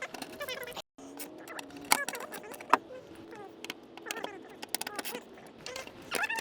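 Sharp metallic clinks and clicks of hand tools working on a car's exhaust, the two loudest about two and nearly three seconds in, over faint high chirping in the background. The sound cuts out briefly about a second in.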